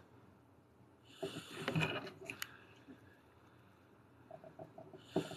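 A person's heavy breath out through the nose about a second in and again near the end, with a few faint ticks in between.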